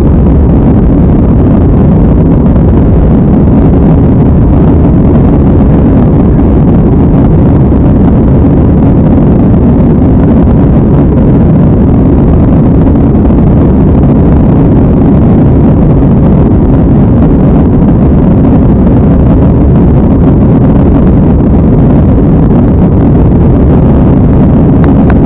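Airbus A320 cabin noise while climbing after takeoff: the engines at high thrust and rushing airflow, heard from inside the cabin as a loud, steady, low-pitched noise that does not change.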